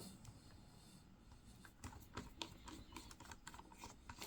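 Near silence with a few faint, scattered clicks and taps from handling a plastic external hard-drive enclosure.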